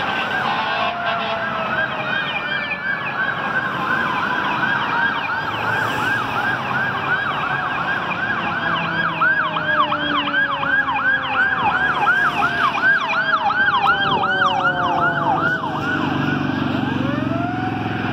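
Fire engine's electronic siren yelping, about three rapid rising-falling sweeps a second, growing louder as it passes, over a Federal Q mechanical siren winding down in one long slow falling wail. Near the end the yelping stops and a single rising tone begins.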